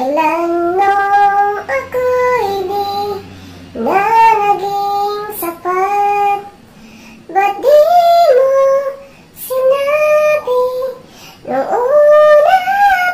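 A woman singing into a condenser microphone through a V8 sound card: several phrases of long held notes, with short breaks between them.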